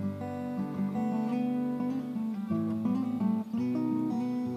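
Background music: an acoustic guitar playing a run of plucked notes.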